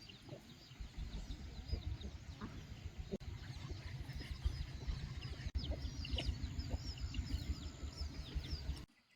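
Chickens clucking with many short, high, falling peeps over a fast low throbbing; the sound begins abruptly and cuts off suddenly near the end.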